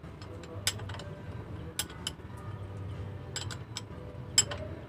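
A handful of sharp metallic clicks and clinks, spaced irregularly, with the loudest near the end, over a low steady hum.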